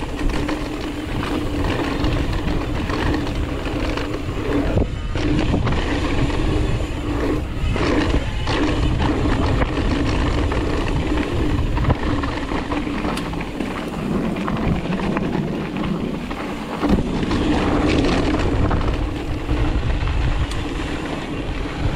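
Ride noise from a moving Ibis Mojo 4 mountain bike picked up by a GoPro: steady rumble of tyres rolling and wind on the microphone, with a constant hum and a few brief rattles.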